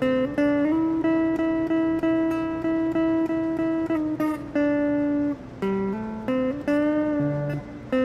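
Austin Telecaster electric guitar on its neck pickup, played as a slow single-note lead line: a few short notes, then one note held for about three seconds, then shorter notes, some bent upward in pitch, near the end.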